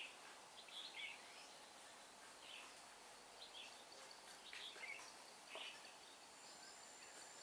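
Faint red-whiskered bulbul calls: short, chirpy phrases repeated every second or so over a soft background hiss.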